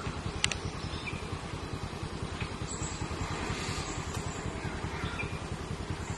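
A vehicle engine idling steadily with a fast, even low throb. A single sharp click comes about half a second in.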